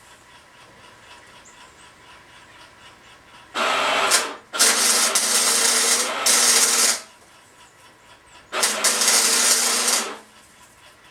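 Electric arc welder laying short welds on a steel Uzi receiver bracket: three bursts of crackling, sizzling arc with a steady hum. The second burst is the longest, about two and a half seconds, and the last ends about ten seconds in.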